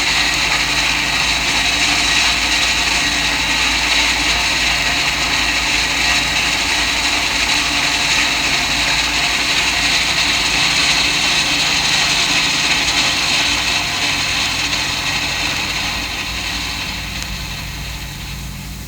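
Duluth, Missabe & Iron Range Yellowstone No. 225, a 2-8-8-4 articulated steam locomotive, working under steam: its exhaust and running gear make a steady rush. Over the last few seconds the sound fades as the locomotive moves away. This is an old 1959 field recording reissued on vinyl.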